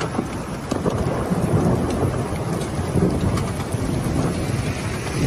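Heavy rain pouring down, with a low rumble of thunder that swells through the middle.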